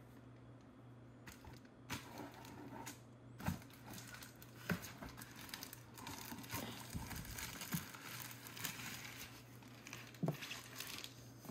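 Reflective bubble-foil insulation crinkling and rubbing against the walls of a plastic battery box as a wrapped battery is pushed snugly down into it, with a few sharp clicks and knocks. It starts about two seconds in.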